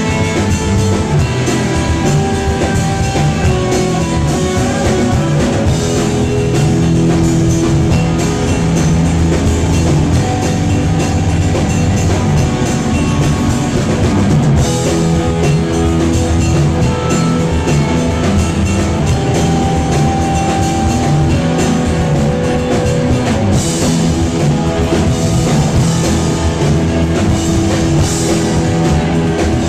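A rock band playing live, with guitar and drum kit.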